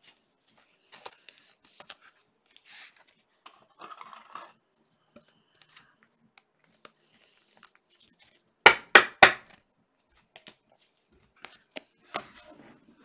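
Trading cards being handled, with scattered soft rustles and clicks. About nine seconds in come three sharp knocks in quick succession.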